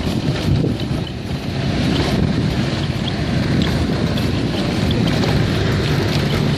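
Steady low rumble of a moving rickshaw, with wind buffeting the microphone.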